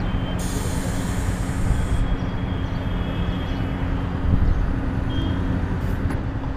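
Petrol dispenser pumping fuel through the nozzle into a motorcycle's tank: a steady low hum, with a hiss for about a second and a half near the start.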